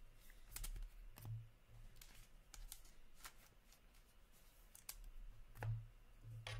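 Trading cards and plastic card sleeves handled by hand: faint, scattered light clicks and rustles, over a faint steady low hum.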